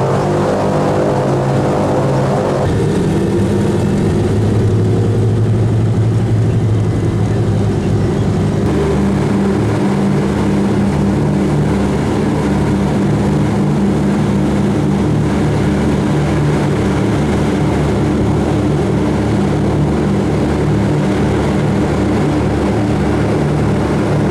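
Twin Pratt & Whitney R-1830 radial engines of a Douglas C-47 Skytrain running at takeoff power, heard inside the cabin as a loud, steady propeller drone. The pitch and tone of the drone change abruptly twice.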